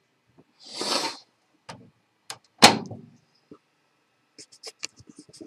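A brief rustle, then a microwave door shutting with a sharp, loud clack about two and a half seconds in, followed near the end by a quick run of small clicks.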